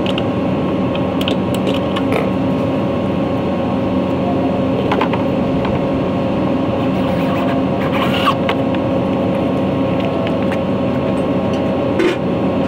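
A steady mechanical hum holding a constant pitch, with a few faint clicks and knocks over it.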